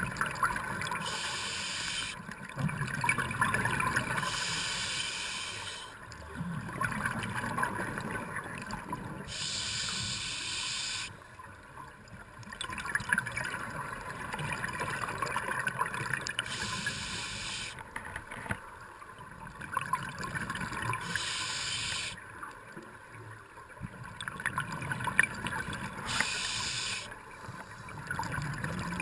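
Scuba diver breathing through a regulator underwater: a hissing inhale every four to six seconds, each followed by a longer gurgling rush of exhaled bubbles.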